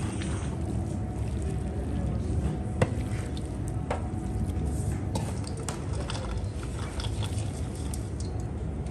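Chopped onion and diced fat tipped from a metal container into a large steel bowl of filling: soft squishing and sliding of the pieces over a steady low background noise, with scattered light clinks and one sharp click about three seconds in.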